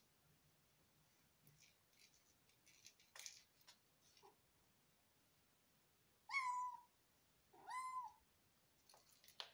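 Eight-week-old tabby kitten giving two short, high mews about a second apart, after a few faint light taps and rustles from her play.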